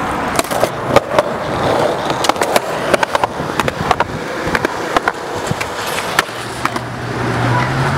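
Skateboard wheels rolling over concrete, with many sharp clacks from the board and the pavement joints as the skater pushes toward a seven-stair set. He jumps the stairs, lands, and rolls away with a low steady drone near the end.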